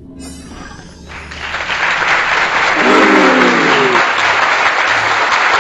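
Crowd applause that swells in just after a second in and then carries on steadily, with a short descending tone near the middle.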